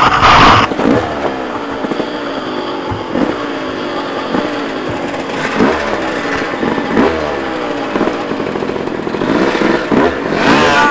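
Off-road motorcycle engine revving up and down over and over as it rides a rough trail, with a loud clattering burst right at the start.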